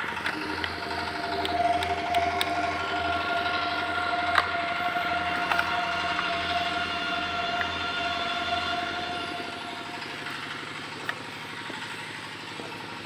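Machinery running: a steady whine made of several fixed tones over a low pulsing drone, with a few faint clicks; the whine fades after about ten seconds.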